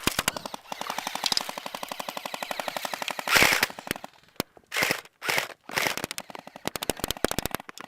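Airsoft guns firing on full auto: a long run of rapid, even clicks for about three seconds, a louder noisy blast, then several shorter bursts.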